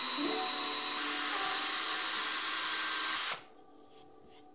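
Power drill boring a small hole into wood. The motor runs steadily, speeds up and gets louder with a high whine about a second in, and stops after about three and a half seconds; a few faint clicks follow near the end.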